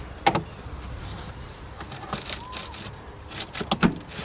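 Plastic clicks and rustling as the two small clips holding a Vauxhall Corsa C's pollen filter are lifted up. There is a sharp click near the start, then groups of quick clicks about two seconds and three and a half seconds in.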